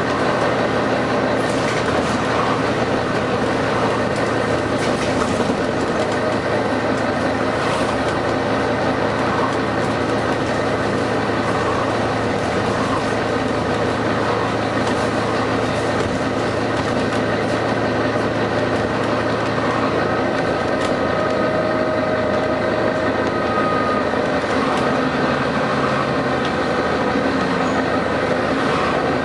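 Volvo B9TL double-decker bus running, its six-cylinder diesel engine and body noise steady throughout, with a few brief rattles.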